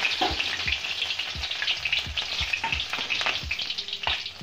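Chopped green chillies sizzling and crackling in hot oil in a kadhai, with soft knocks every half second or so.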